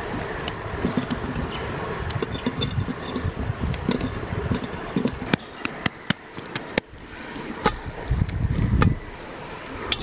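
Low rumble of wind on the microphone, with scattered light clicks and taps from handling a metal bowl and setting dough into a floured cast-iron camp oven; a few sharper knocks come in the second half.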